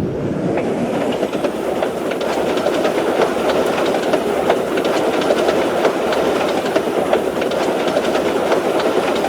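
A train running steadily: a dense rumble with rapid, irregular clicks.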